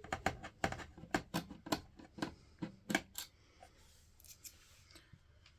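Screwdriver working a screw loose inside a desktop PC case, giving a quick run of small metallic clicks, about four a second, that thins out and stops about three seconds in.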